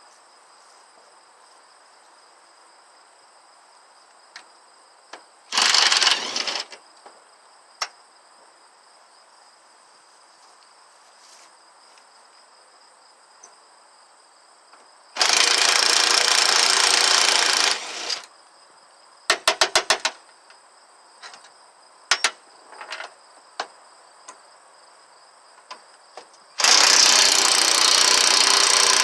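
Impact gun running in loud bursts to spin bolts off a lawn tractor's rear end: a short burst about six seconds in, a longer one of about three seconds mid-way, a quick rattle of rapid strikes, and a long burst near the end. Scattered clinks and taps of tools and parts in between.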